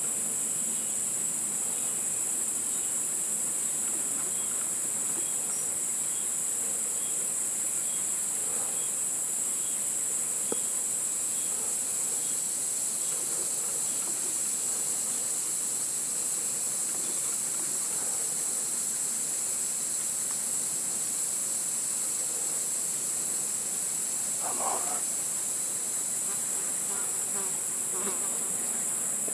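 Evening insect chorus: a steady, high-pitched drone without a break, with a faint ticking about twice a second through roughly the first third.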